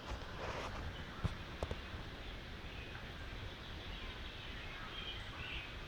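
Woodland ambience: a steady background hiss and rumble with a couple of sharp clicks about a second and a half in, and a few faint short bird chirps near the end.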